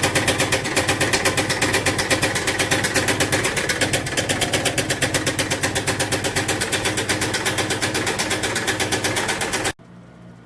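A machine running loudly with a fast, even pulsing rattle, about eight beats a second, over a steady hum; it cuts off abruptly near the end, leaving a much quieter low hum.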